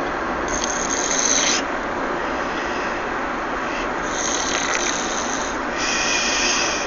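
A sleeping baby snoring in three raspy, hissing breaths, each about a second long, over steady road noise inside a moving car.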